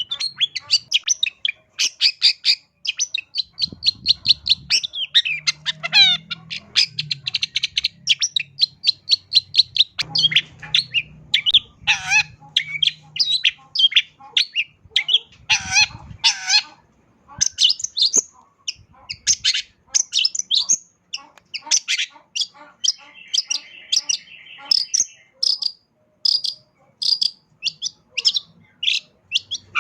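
Long-tailed shrike (cendet) singing a fast, varied run of short chirps, trills and whistled notes, a song packed with mimicked calls of other birds. A brief buzzy chatter comes about three-quarters of the way through.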